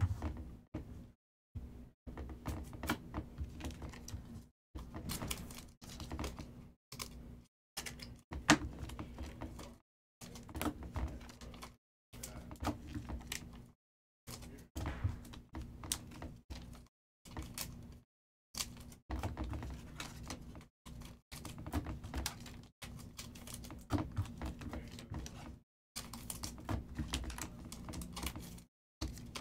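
2022 Donruss Optic football trading cards being handled and flipped through one by one, a rapid run of light clicks and snaps as the cards slide and knock against each other, in bursts broken by short silent gaps.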